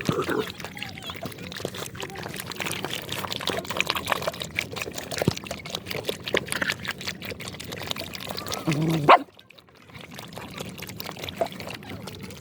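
Water pouring and trickling while a dog makes small sounds. Just before nine seconds there is a short, louder pitched cry, then the sound cuts off suddenly.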